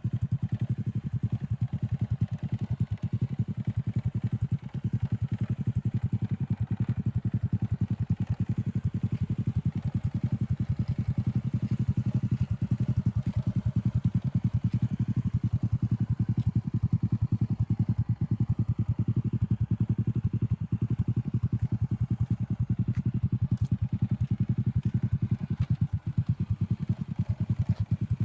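Small motorbike engine of a homemade three-wheeler running steadily with its newly fitted muffler, an even, rapid pulsing exhaust note with no revving.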